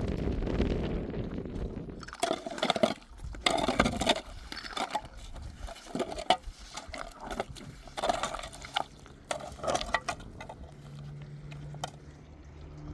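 Water splashing and sloshing in a run of irregular bursts, with some clinking. Wind rumbles on the microphone at the start, and a low steady hum comes in near the end.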